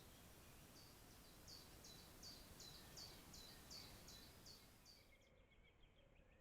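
Faint songbird song: a row of about a dozen short, high notes repeated evenly, about three a second, over a steady hiss. It stops abruptly about five seconds in.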